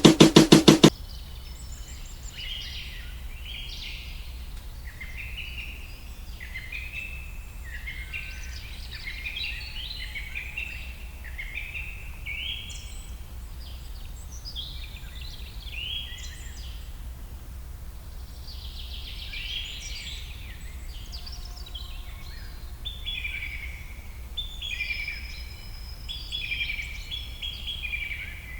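A loud, rapid pulsing sound cuts off about a second in. Then many small birds chirp and call over one another in short, overlapping phrases, over a steady low rumble.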